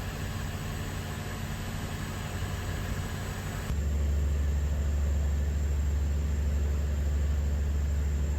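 An engine running steadily with a low hum and a hiss above it. About four seconds in, it changes abruptly to a louder, deeper hum.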